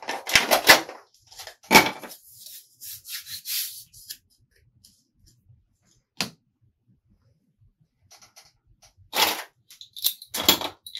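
Irregular sharp clicks and knocks of small hard objects being handled: several in the first two seconds, a single click in a quiet middle stretch, and another cluster near the end.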